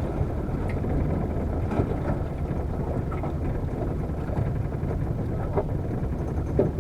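Small fishing boat's motor running steadily.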